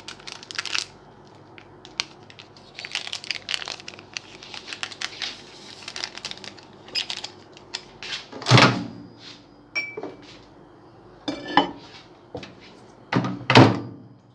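Kitchen handling sounds: a ceramic mug and dishes clinking, with knocks and two loud thuds, and a short electronic beep from a microwave oven's keypad about ten seconds in.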